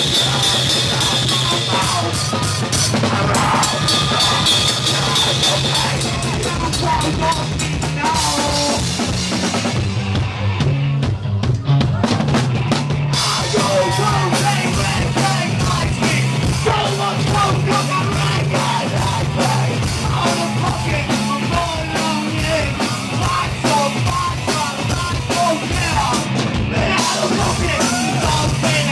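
Live punk rock band playing loud: pounding drum kit with crashing cymbals and electric guitar. The cymbals and high end drop away for about three seconds around ten seconds in, then the full band comes back.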